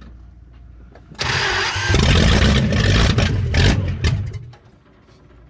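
1974 Dodge W200 pickup's engine being cranked with the throttle pumped; it catches about a second in and runs loud and rough on open exhaust for a couple of seconds, then dies. The distributor is set wrong: its timing cannot be turned far enough, so the engine won't keep running.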